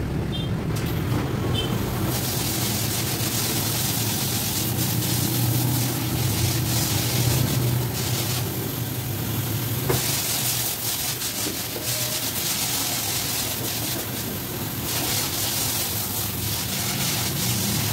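Pressure washer spraying water with its motor humming, the hiss of the spray starting and stopping a few times as the trigger is pressed and released.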